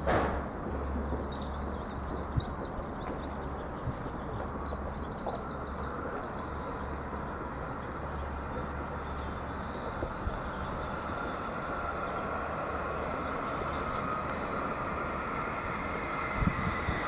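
Alstom Citadis Luas tram approaching on its rails. The running noise swells slowly, and an electric whine grows louder over the last few seconds. Birds chirp during the first few seconds.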